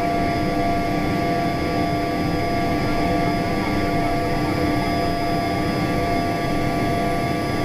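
Learjet 45 cabin noise during the climb after takeoff: the rear-mounted Honeywell TFE731 turbofan just outside the window runs steadily at climb power. It makes an even rushing noise with several steady whining tones over it.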